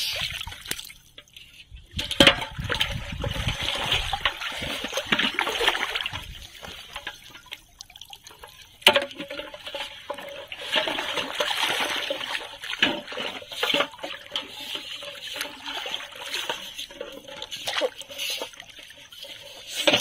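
Shallow water splashing and trickling as a fish is shaken out of a plastic-bottle trap and a person wades and handles a pot in the water, with sharp splashes about two seconds in and again near nine seconds.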